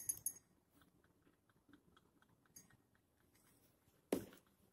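Handling noise from titration glassware: a short clatter of clicks at the start, a few faint ticks, and one sharp knock about four seconds in, with near silence between.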